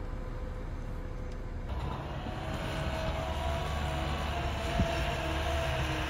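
A low steady rumble, then, about two seconds in, a wheel loader's diesel engine running louder with a steady whine over it as the loader pushes snow, with a few light knocks.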